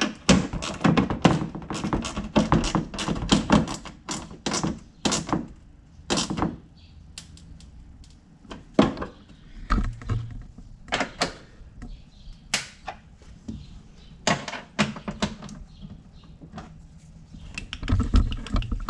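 Hand ratchet clicking in quick runs as a bolt holding a plastic fender liner is snugged up, followed by scattered single knocks and clicks further on.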